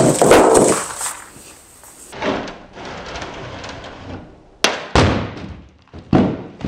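A 39-pound concrete block dropped about six feet lands on the plastic lid of a Milwaukee Packout rolling toolbox with a loud, heavy impact. The block then hits the floor and tumbles, giving a few sharp knocks about two-thirds of the way through.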